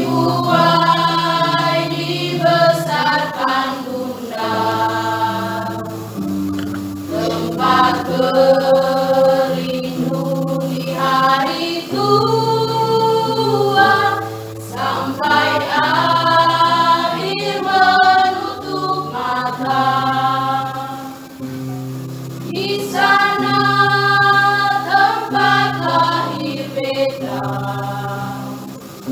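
Small mixed choir of women and men singing in several-part harmony, holding notes in long chords.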